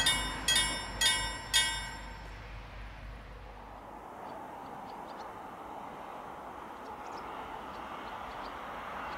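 Railway level-crossing bell ringing about twice a second, four strikes that stop about one and a half seconds in. A low rumble under it fades out about four seconds in, leaving a steady hiss.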